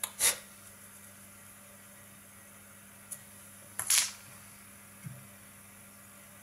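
Two brief scratchy rustles, one at the start and one about four seconds in, from fingers handling the thread and materials at a fly-tying vise, over a steady low hum.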